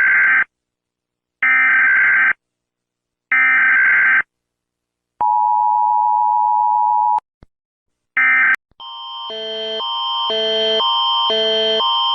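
Emergency Alert System broadcast tones: three short, harsh data bursts of the digital header about a second apart, then a steady two-tone attention signal for about two seconds. A final short burst follows, then a loud electronic alert tone that switches back and forth between pitches about twice a second.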